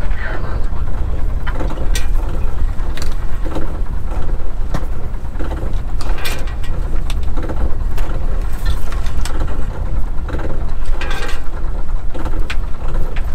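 Fishing boat's engine running steadily, with irregular clicks and clanks of gear working on deck.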